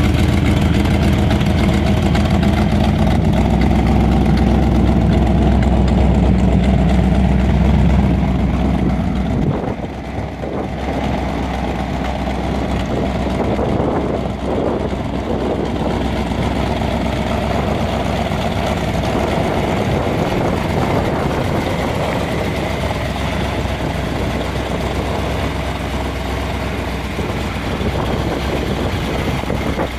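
Engine of a 1949 International rat-rod pickup idling steadily. The sound drops a little in level and changes in character about ten seconds in, then carries on at an even idle.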